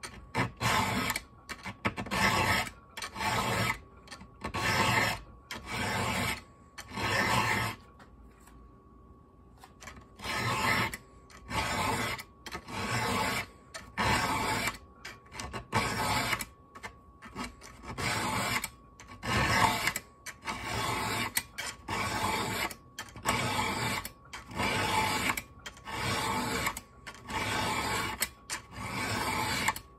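Round hand file rasping across the cutters of a .404-pitch semi-chisel chainsaw chain, in steady even strokes a little over one a second. The strokes stop for about two seconds partway through, then carry on. The cutters are being resharpened after hitting rock.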